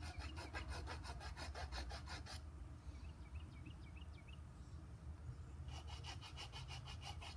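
A round rasp filing a wooden slingshot fork in quick back-and-forth strokes, about seven a second. It shapes the band grooves and works them a little way around the fork. The strokes come in two runs with a pause of about three seconds between them.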